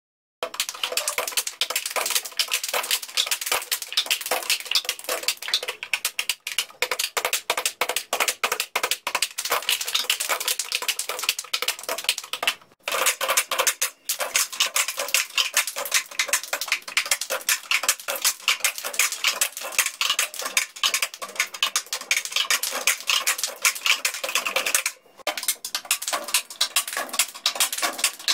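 Plastic cups clapped, tapped and slammed on wooden school desks together with hand claps, several players at once doing a cup-percussion rhythm. It is a dense run of quick clacks and claps that stops briefly twice, near the middle and near the end.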